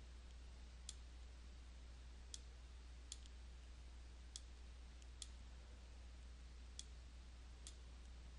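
Faint computer mouse button clicks, about eight spread unevenly with two in quick succession, over a steady low hum.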